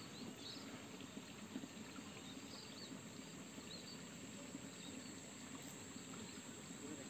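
Faint rural outdoor ambience: a steady high insect trill, with a few short faint bird chirps.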